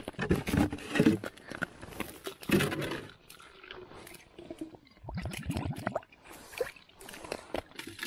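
Crinkly plastic packaging being handled in the first few seconds, then water and slush gurgling and splashing as a small cup scoops from an ice-fishing hole, with scattered handling clicks.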